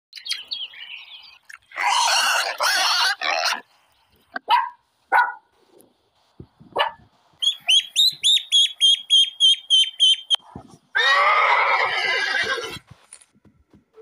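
A string of different animal calls edited one after another. In the middle comes a run of rapid, evenly spaced high peeps from ducklings, about four or five a second. It is framed by loud, harsh calls from other animals near the start and again near the end.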